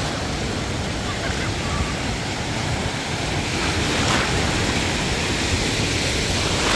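Ocean surf washing and breaking around the recorder in shallow water, a steady rushing that swells a little about four seconds in, with wind buffeting the phone's microphone.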